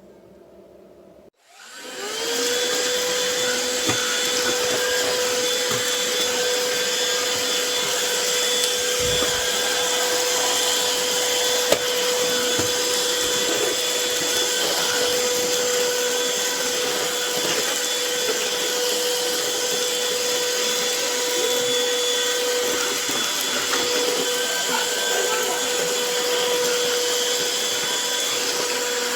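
Craftsman V20 cordless stick vacuum switched on about a second and a half in, its motor spinning up with a rising whine, then running steadily with a high hum over a rush of air.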